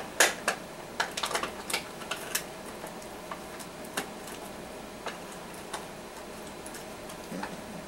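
Irregular sharp clicks and taps of a cardboard box and plastic packaging being handled and opened, several close together in the first two seconds or so, then only now and then.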